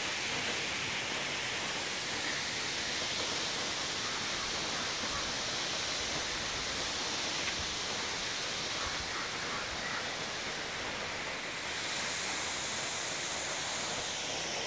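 A steady rushing hiss with no pitch or rhythm, which shifts slightly in tone a little after two-thirds of the way through.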